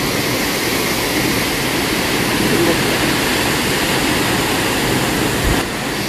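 Steady rushing of a large waterfall, water pouring down a rock face into a pool, with a small dip in loudness shortly before the end.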